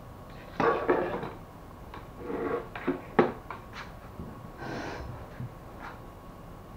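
Hands handling a laser printer's fuser assembly and parts on a workbench: several sharp plastic-and-metal clicks and knocks, the loudest a little after three seconds in. There are short breath-like sounds about a second in and again near five seconds.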